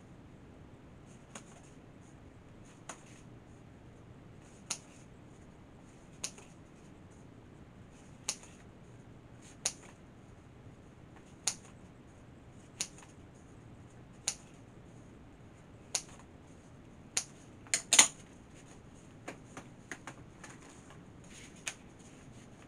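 Scissors snipping through a black spider-web decoration: a series of sharp single snips about every second and a half, with a quick cluster of louder cuts about three-quarters of the way through.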